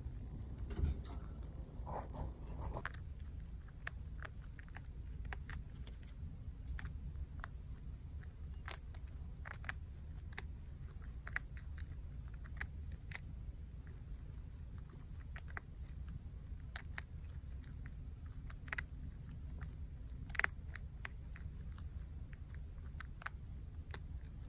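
Chinchilla chewing carrot leaves: quick, irregular, crisp nibbling clicks over a low background rumble.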